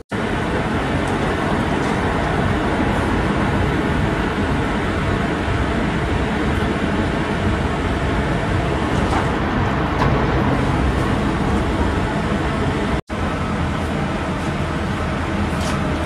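Steady urban road traffic noise, a continuous rumble and hiss of passing cars. The sound drops out for an instant about thirteen seconds in.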